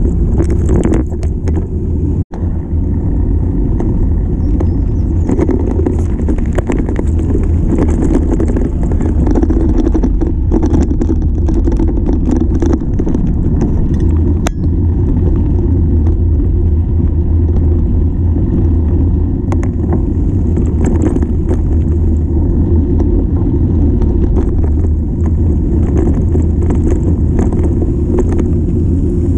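Loud, steady rumble of wind buffeting the camera's microphone while a mountain bike rolls over a dirt and gravel track, mixed with tyre noise and scattered clicks and rattles from the bike. The sound drops out for an instant about two seconds in.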